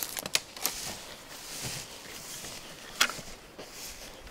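Footsteps through dry brush and grass, with a few sharp twig snaps in the first second and one sharp click about three seconds in.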